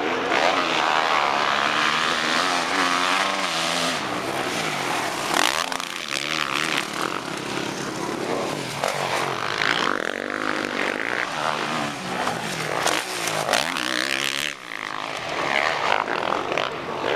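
Several motocross bikes racing on a dirt track, their engines revving up and down, with the pitch rising and falling again and again as they accelerate and pass.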